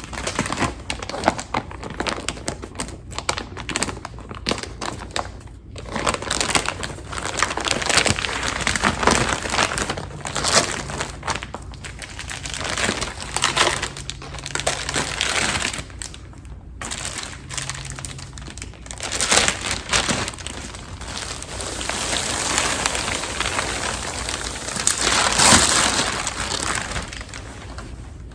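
Plastic packaging of vacuum-sealed pillows being handled and opened, crinkling and rustling in irregular bursts.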